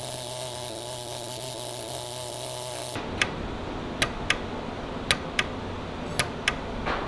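Sharp single clicks from a hand-held micro welding pen, one per pulse, as its fine tip tacks small gold jewelry parts held in tweezers. The clicks start about three seconds in, at irregular intervals and often in pairs. Before them there is only a steady low hum.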